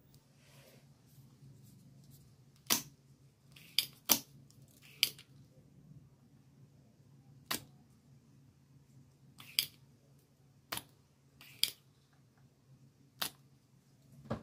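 About ten sharp clicks and taps, spaced irregularly a second or two apart, as a soldering iron and other tools are handled at a repair bench, over a low steady hum.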